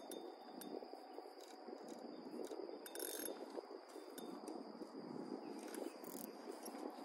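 Fishing reel clicking and ratcheting in irregular ticks while a hooked fish pulls on a hard-bent rod, over a steady low wash of water and wind noise.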